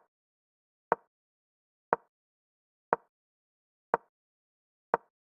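Move sound effect of a digital chess board: a short sharp click about once a second, six in a row, as moves are played in quick succession.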